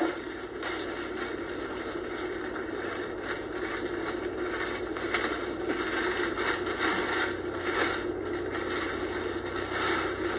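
Plastic bread bag crinkling and rustling as it is handled, in many small irregular crackles over a steady low hum.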